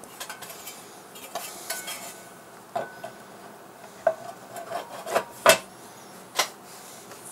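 Metal lid of a Focusrite Scarlett 18i6 audio interface being fitted back onto its chassis by hand: light scrapes and clicks of metal on metal, with a sharp knock about five and a half seconds in and another about a second later.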